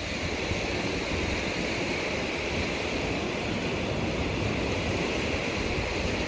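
Turbulent water churning out of a concrete canal outlet, a steady rushing noise.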